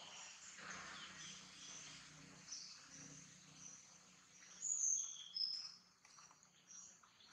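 Outdoor insect and bird chorus: steady, faint, high repeated chirping, with a few louder, sharp, high-pitched chirps about five seconds in.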